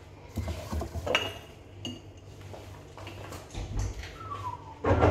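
Kitchen clatter: a scatter of knocks and clinks as pots and utensils are handled, with a heavier knock near the end. Just before it, a man whistles a couple of falling notes.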